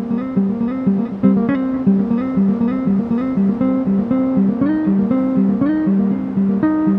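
Background music: a plucked guitar picking a steady melody, with a few notes sliding up in pitch.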